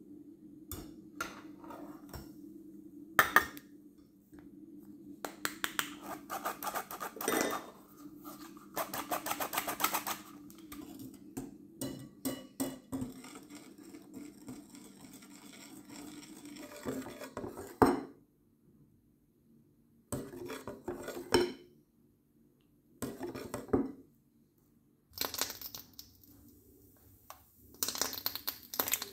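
Metal wire whisk clinking and scraping against a glass bowl while flour is mixed into beaten egg batter, in uneven bursts with short pauses between.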